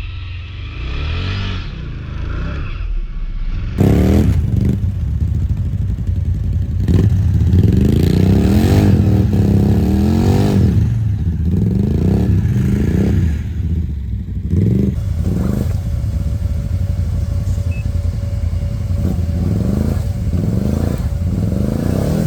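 ATV engine revving hard and repeatedly, its pitch rising and falling over and over, with some clatter.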